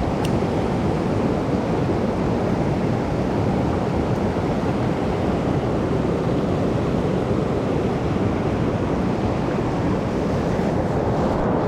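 A rain-swollen mountain stream rushing steadily, an even, unbroken noise of fast water.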